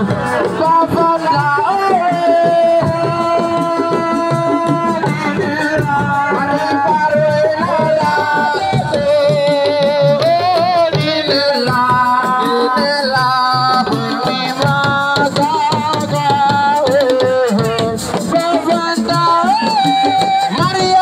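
Senegalese assiko music: a lead singer's sustained, wavering melody over a dense, driving beat of hand drums and percussion.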